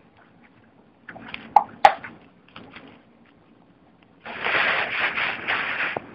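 Handling noise: two sharp clicks about a second and a half in, then loud rustling for about two seconds, starting a little after four seconds in.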